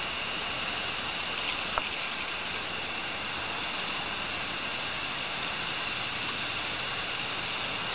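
A thin stream of water pouring down and splashing steadily onto grass, an even hiss. One short sharp click about two seconds in.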